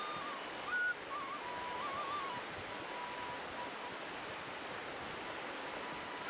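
A side-blown flute playing a slow melody with a few quick trills, settling on a long held low note about two and a half seconds in that fades away. The steady rush of the river's rapids runs underneath.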